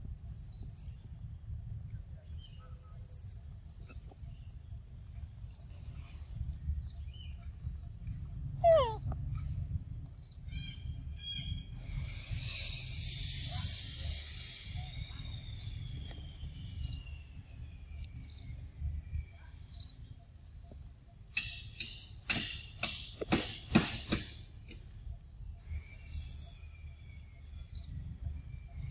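Outdoor forest ambience: a steady high insect drone over a low rumble, with bird calls, including a long, slowly falling whistle from about fourteen seconds in. A short falling call comes about nine seconds in, a high buzzing hiss lasts about two seconds around twelve seconds, and a cluster of sharp knocks comes about two-thirds of the way through.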